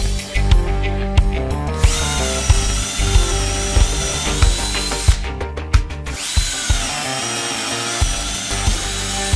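Bosch GSB 1080-2-LI 10.8 V cordless drill/driver running in two spells of about three seconds each, its motor whining steadily at high speed, over background music with a steady beat.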